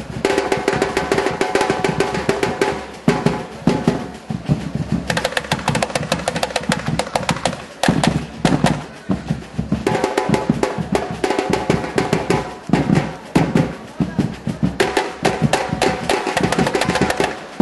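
Samba batucada: a school samba drum section with surdo bass drums and other percussion playing a dense, continuous rhythm.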